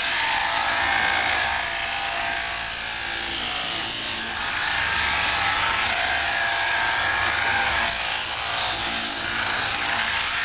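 Sheep-shearing handpiece running steadily as its comb and cutter clip through the fleece in long blows along the sheep's back: a continuous hissing mechanical buzz.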